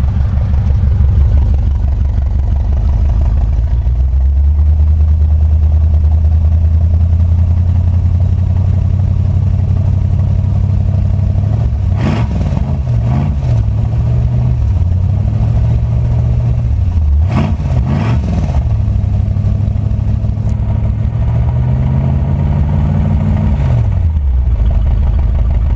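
Pontiac 350 V8 in a 1974 Ventura GTO idling, heard from beneath the car. The throttle is blipped in short bursts about twelve seconds in and again about seventeen seconds in, and near the end the revs climb slowly and then fall back to idle.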